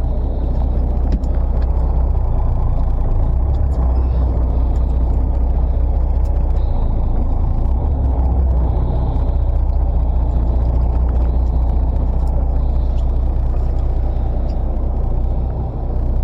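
Fishing boat under way: its engine running with a steady low rumble, mixed with water and hull noise.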